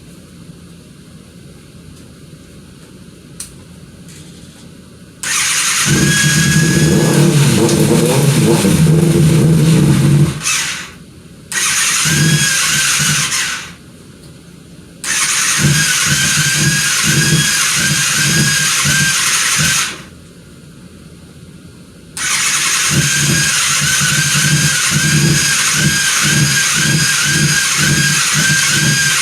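2007 Kawasaki ZX-6R inline-four being cranked on its electric starter in four separate tries about five seconds in, each a few seconds long with a pulsing beat and a wavering whine, stopping between tries. The bike is hard to start: its fuel pump was failing.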